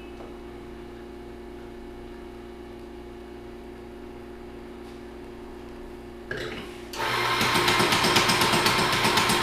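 Steady machine hum, then about seven seconds in a coffee grinder starts and grinds beans with a loud, fast, even rattle.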